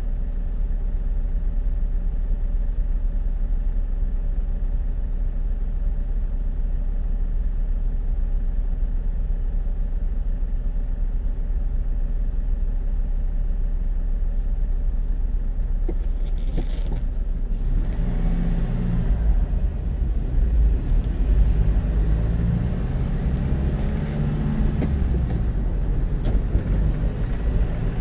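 A car's engine idling steadily while stopped in traffic, then, a little over halfway through, the car pulls away and the low rumble of engine and road noise grows louder and shifts as it gets under way.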